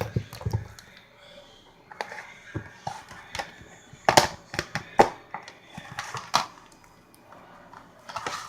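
Slime being squeezed and poked by hand, giving irregular sharp clicking and popping sounds, the loudest pops about four and five seconds in.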